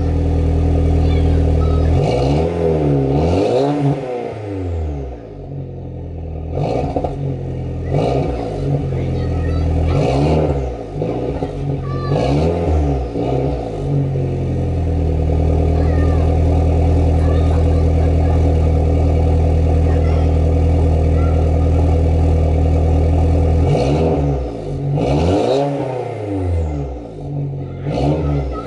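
Exhaust of a 2006 Saab 9-3 Aero's turbocharged 2.0-litre four-cylinder, with the rear muffler deleted. It is revved up and back down again and again, held at a steady engine speed for about ten seconds from the middle on, then blipped repeatedly again near the end.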